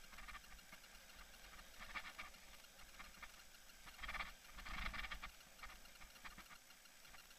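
Faint rattling and ticking of a bicycle-mounted action camera as a mountain bike rolls over a dirt singletrack, with louder bursts of rattling about two seconds in and again around four to five seconds in.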